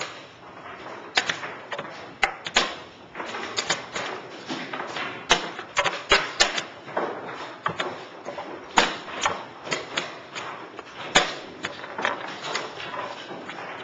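Chess pieces being set down and moved with sharp knocks in quick, irregular succession, mixed with the slaps of a chess clock's buttons, in the fast rhythm of blitz play.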